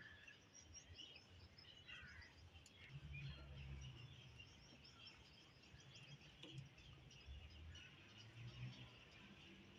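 Faint outdoor ambience of small birds chirping continuously, with a low rumble coming in about three seconds in and again near the end.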